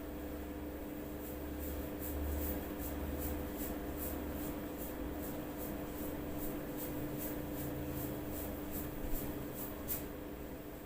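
Neck massage with joint cracking: a rapid, even run of faint sharp ticks, about three to four a second, over a low steady hum. Two sharper clicks stand out about nine and ten seconds in.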